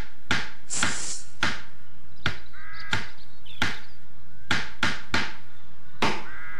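Hammer knocking on wood, about a dozen sharp blows at an uneven pace, as a wooden bench is nailed together. A brief hiss comes about a second in, and two short pitched tones come about three and six seconds in.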